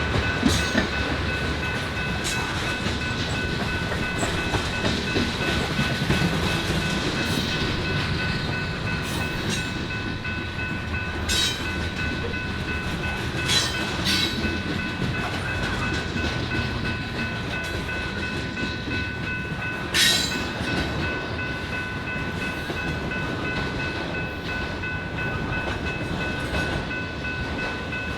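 BNSF freight train cars rolling past with a steady rumble, a thin steady high ringing above it, and a few irregular sharp clanks of wheels over the rails. The loudest clank comes about twenty seconds in.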